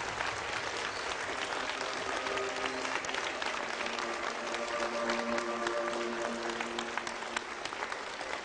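A large audience applauding, dense clapping that keeps up throughout. Slow background music with long held notes plays under it.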